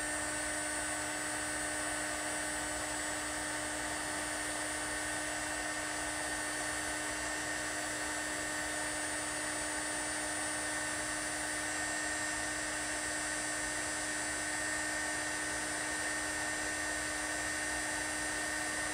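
Small handheld heat gun running steadily with an even whine while it shrinks heat-shrink tubing over a soldered wire splice.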